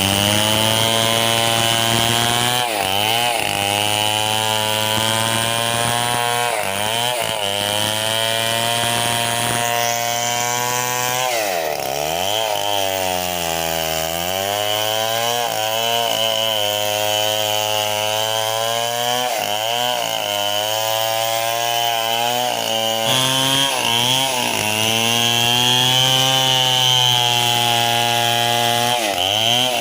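Chainsaw running at high speed through wood, its pitch dropping and recovering several times as it loads up in the cut, with one long, deep dip about twelve seconds in.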